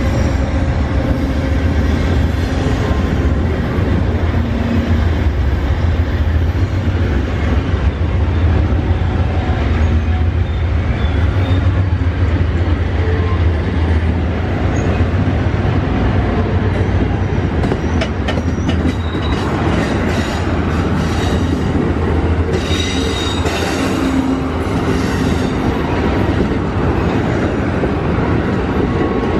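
Amtrak passenger cars rolling past close by, a steady heavy rumble of wheels on rail with clicking over the rail joints. In the second half a high wheel squeal comes in and out along with sharper clicks.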